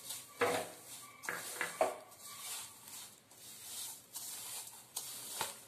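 Fingers working sugar into mashed banana in a bowl, a gritty rubbing with a few knocks against the bowl, most in the first two seconds and one more near the end.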